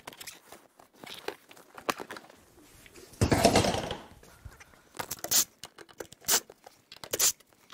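A car seat being dragged out of a small car's cabin. About three seconds in there is a loud, rough scraping rasp lasting most of a second, followed by a few short knocks and clicks.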